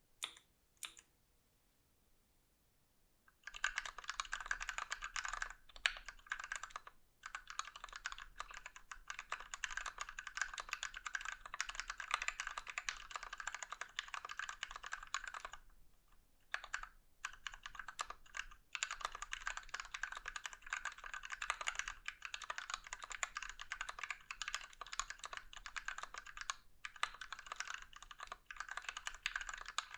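Fast typing on a Dimple mechanical keyboard with lubed Gateron Ink Black linear switches in a brass plate and XDA Canvas keycaps: a dense, steady stream of keystrokes. It starts about three and a half seconds in, after near silence, and has a few brief pauses.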